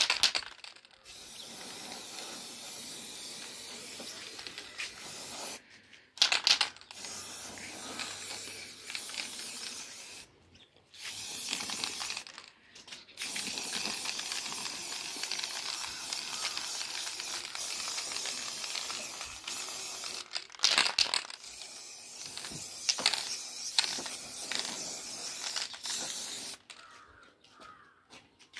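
Aerosol spray-paint can spraying an extra coat over factory paint on a motorcycle panel: long hissing bursts broken by several short pauses, stopping near the end.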